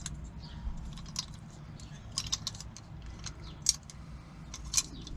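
Lock-picking tools working inside a crusty, stubborn door lock cylinder: irregular small metal clicks and scrapes, with two sharper clicks a little past halfway and near the end. A low steady rumble runs underneath.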